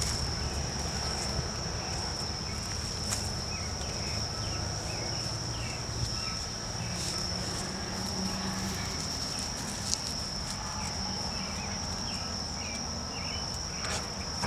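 An insect trilling steadily at one high pitch, with a string of short chirps, lower in pitch, repeating over it for several seconds.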